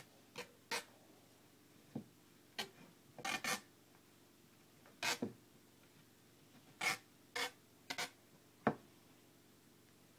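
Tape being pulled off the roll and wound around a hockey stick shaft, in about a dozen short rips at uneven intervals.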